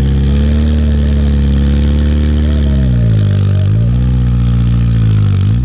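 Off-road 4x4's engine running hard under load. Its revs are held high for about three seconds, then drop and pick up again twice.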